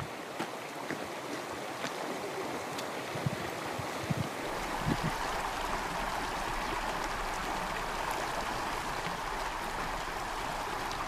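Shallow stream running over stones and gravel: a steady rushing of water, with a few faint clicks in the first half.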